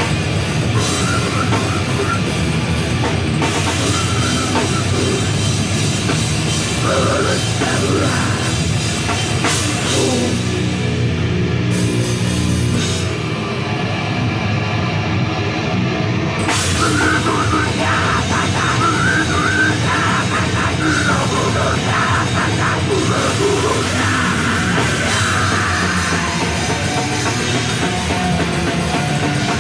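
Heavy metal band playing live: distorted electric guitar, bass and drums at full volume. Around twelve seconds in the top end thins out for about four seconds, then the full band comes back in.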